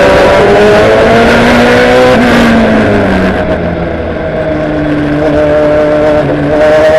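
Ferrari GT race car's engine heard from inside the cockpit, running at high revs, then lifting about two seconds in, its pitch falling as the car slows. It runs lower and quieter through the middle, then goes back on the throttle near the end with the pitch rising again.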